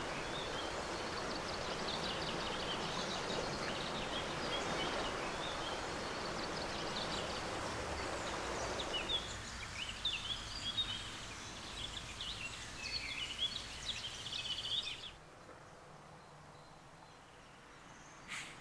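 Outdoor ambience of small songbirds chirping and singing over a steady rushing hiss. The hiss fades about halfway through. The birdsong stops abruptly about fifteen seconds in, leaving a quieter background with one short sharp chirp near the end.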